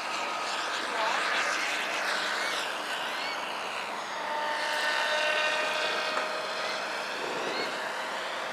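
A radio-controlled model airplane flying, its motor and propeller making a steady drone that drifts slightly in pitch, with a few faint short chirps over it.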